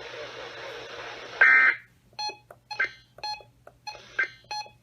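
Weather radio receiver hissing with static. A short tone burst comes about a second and a half in, the hiss cuts off suddenly, and a run of about seven short electronic beeps follows at uneven intervals.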